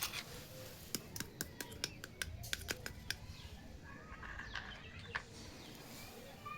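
Small hard plastic toy kitchen pieces clicking and tapping as they are handled: a sharp click at the start, then a quick run of about a dozen clicks in the next two seconds.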